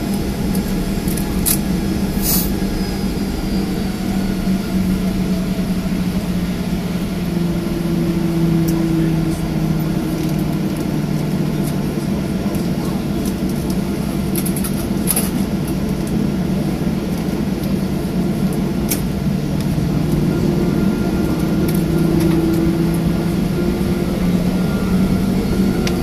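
Cabin noise of a Boeing 737-800 taxiing after landing: the CFM56 jet engines run at idle with a steady low hum whose pitch drifts slightly, with a few brief clicks.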